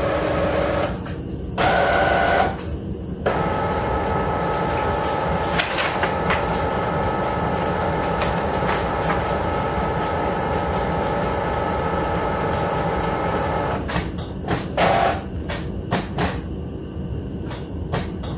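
Epson ET-15000 inkjet printer working through an alignment print: a steady whine made of several tones from its motors for about ten seconds, stopping suddenly, followed by several sharp clicks and paper rustling.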